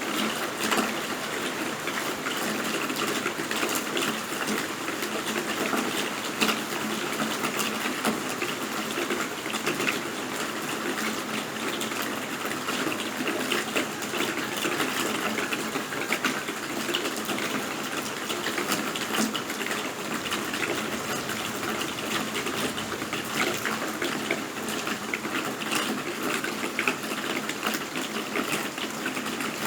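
Steady rain: an even rushing wash with many sharp drop impacts scattered through it, holding at the same level throughout.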